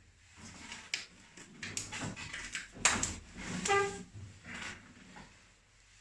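Rustling and light knocks of a patient settling face down on a padded treatment table, with a short squeak about three and a half seconds in.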